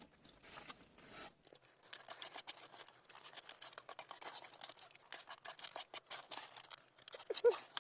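Faint eating sounds: irregular small clicks and scrapes as two people hurry through plates of rice.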